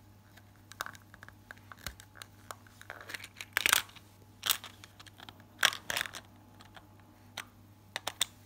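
AA batteries being fitted into the plastic battery compartment of a plush toy dog: a run of irregular clicks and scrapes as the cells knock against the plastic case and metal contacts, loudest in a burst of sharper clicks a few seconds in.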